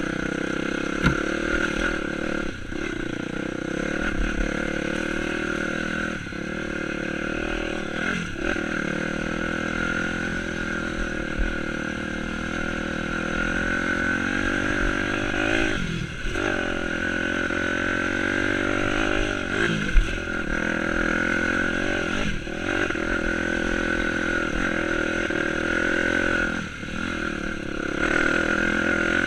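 Dirt bike engine running on a trail ride. The throttle is chopped and reopened every few seconds, so the engine note drops and climbs back. There is a sharp knock about a second in and a louder one near the middle.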